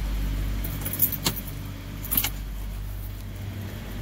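Small metal items jingling twice, about a second and two seconds in, as the driver rummages in the truck cab, over a steady low hum of the vehicle.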